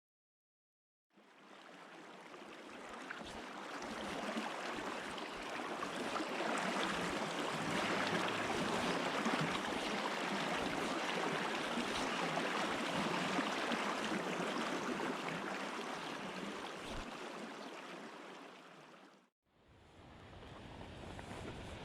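Rushing river water, fading in, swelling and fading out again. Just before the end it cuts to a different rushing sound that has more low rumble.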